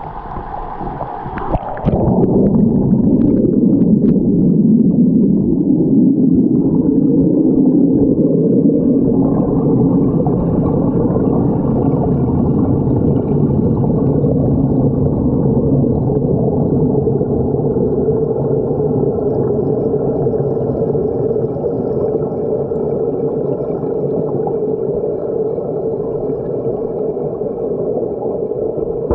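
Stream water pouring over a small waterfall, heard with the microphone under water: a loud, muffled, steady rush. About two seconds in it changes abruptly from a brighter splashing to this heavier, duller sound as the camera goes under.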